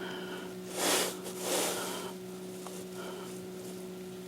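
A person breathing out audibly twice through the nose, about a second in and again half a second later, over a steady low electrical hum.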